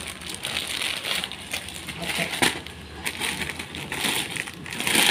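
Clear plastic polythene garment bag crinkling and crackling as it is handled and its flap is pulled open, irregular, with a louder crackle near the end.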